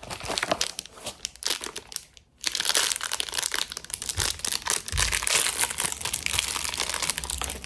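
Plastic packaging crinkling as it is handled and pulled open: irregular crackling, with a short pause about two seconds in, then louder and continuous.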